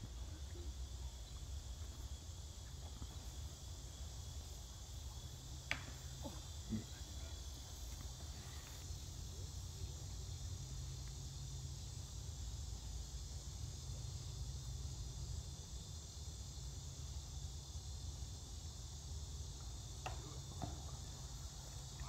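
Steady high-pitched chorus of insects in the summer trees, with a low rumble underneath and a couple of faint clicks.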